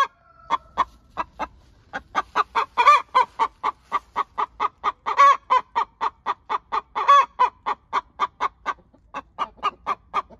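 A hen clucking in a steady run of short clucks, about four a second, with a louder, drawn-out call about every two seconds.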